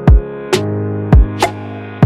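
Electronic background music with a steady beat: deep kick-drum hits and sharp snare hits over held synth chords.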